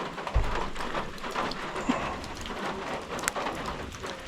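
Steady rain pattering, with a dull low thump about half a second in.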